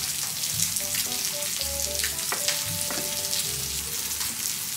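Samgyeopsal (pork belly) sizzling on a hot tabletop grill plate, a steady crackling hiss.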